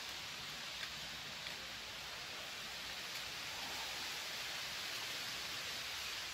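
Steady outdoor hiss of wind and small waves rippling on the water around a boat, with a few faint clicks.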